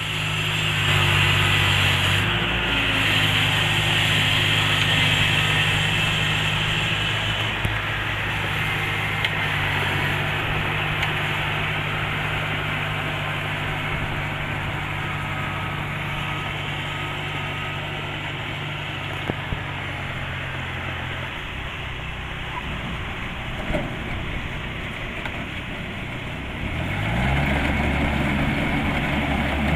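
Kubota DC-70 Plus combine harvester's diesel engine running steadily. Its pitch drops slightly about two-thirds of the way through, then rises near the end as it revs up.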